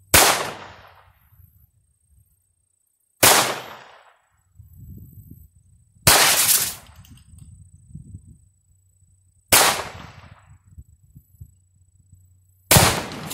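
Ruger SR22 .22 LR pistol fired five times, one shot about every three seconds, each crack trailing off in a short echo.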